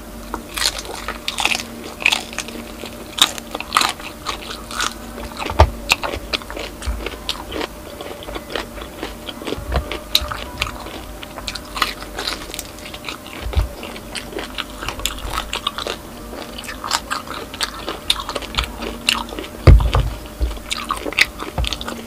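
Close-miked biting and chewing of crispy deep-fried pork knuckle skin (crispy pata), with sharp, irregular crackling crunches throughout. A few low thumps come in between, the loudest near the end.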